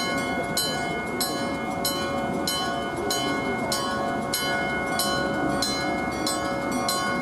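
Japanese level-crossing warning alarm striking in a steady beat about one and a half times a second, overlaid with an old electric crossing bell ringing continuously. A train's running rumble sits underneath.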